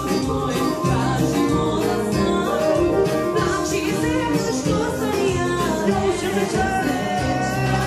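Live band dance music with a male singer, amplified through PA speakers, with a steady beat.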